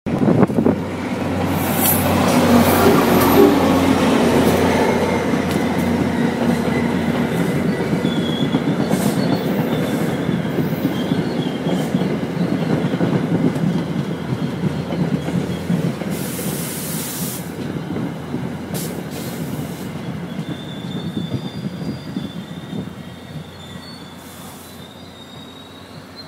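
NJ Transit push-pull train, a GP40PH-2 diesel locomotive leading Comet coaches, passing close at speed. It is loudest as the locomotive goes by in the first few seconds, then the coaches' wheels clatter over the rail joints with a faint high squeal, and the sound fades over the last several seconds as the cab car passes.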